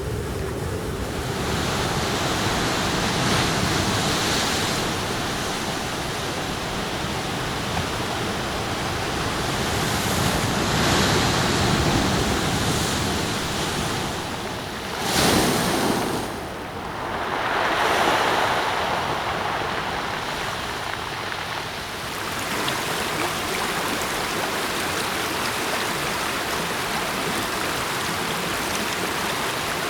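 Ocean waves breaking on a shore with wind, the rush swelling and falling every several seconds, with one sharp, loud crash about halfway through. In the last third the sound settles into a steady, even rush of water.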